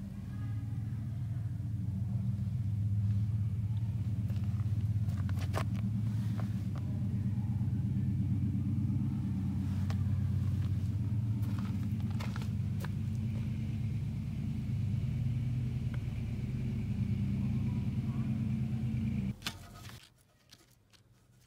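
A car engine idling steadily with a low hum, shut off about nineteen seconds in, with a few light clicks of handling on top.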